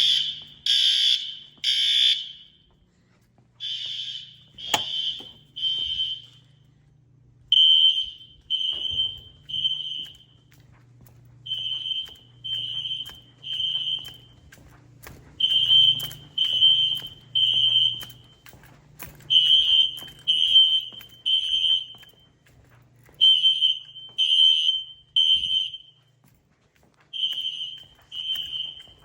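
Fire alarm horns sounding the temporal-three evacuation signal: three high-pitched beeps, a pause, then three more, repeating about every four seconds. This is the signal of a building fire alarm in alarm.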